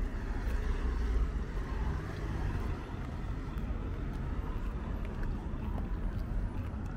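City road traffic: a steady hum of cars around a street intersection, a little louder in the first couple of seconds as a vehicle goes by.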